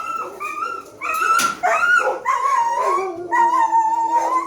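Scared puppies screaming and yelping: a string of high-pitched cries with a sharp bark about a second and a half in, ending in one long drawn-out scream of about a second. These are the cries of puppies in flight mode, frightened of an unfamiliar adult dog.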